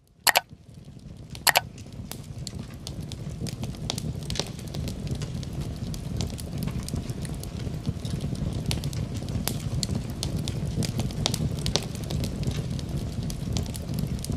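Wood fire burning in a fireplace: a steady low rumble of flames with frequent crackles and snaps. Two sharp pops stand out in the first second and a half while the sound fades in.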